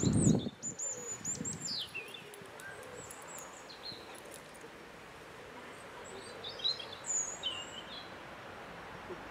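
Small songbirds chirping in short, high, sliding calls, one cluster in the first two seconds and another around two-thirds of the way through. A brief, loud, low rustle at the very start.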